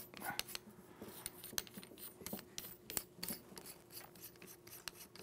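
Faint, irregular metallic clicks and light scraping as the retainer nut is spun by hand onto the threads of a VR80 shotgun's gas system.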